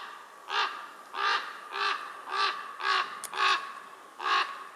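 A crow calling over and over, a regular run of short caws about three every two seconds.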